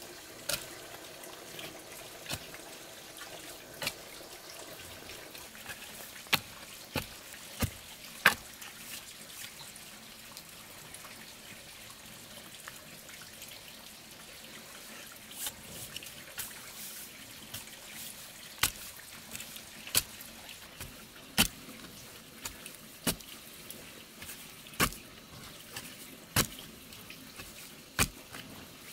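A hand digging tool striking into stony soil in sharp, irregular chops, roughly one every second or two, over a steady background hiss.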